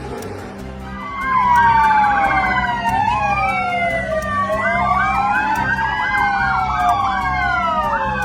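Several emergency-vehicle sirens sounding at once, starting about a second in, some with slow wailing sweeps and some with fast warbling yelps, overlapping each other over a low steady hum.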